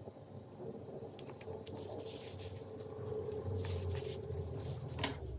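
A paper tissue rustling and crinkling in the hand, with small handling clicks, over a low steady hum. The crackle thickens from about a second and a half in, and there is a sharp click just after five seconds.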